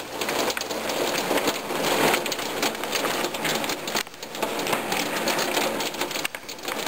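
Heavy rain mixed with small hail pattering on a wooden deck and window glass: a dense steady hiss full of rapid ticks, easing briefly about four seconds in and again near the end.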